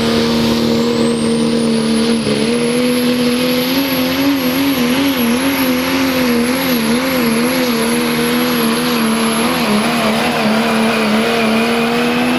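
Pro Stock Diesel 4x4 pickup's turbocharged diesel engine running flat out under sled load. Its steady, loud note wavers up and down in pitch for several seconds mid-pull. A high turbo whistle rises over the first couple of seconds and then holds.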